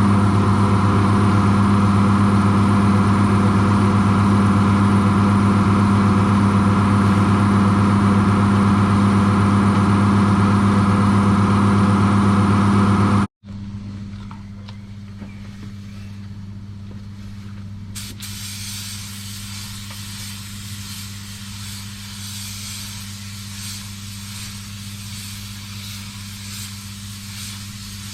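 A loud, steady mechanical hum at one fixed pitch that cuts off abruptly about 13 seconds in. A quieter steady hum with hiss follows, and the hiss grows brighter about 18 seconds in.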